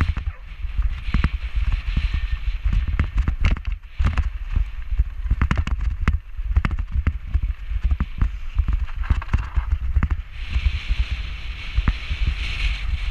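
Mountain bike riding fast down a loose gravel and rock trail: tyres crunching over stones and the bike rattling with many sharp knocks. A heavy low rumble of wind buffets the helmet camera's microphone throughout.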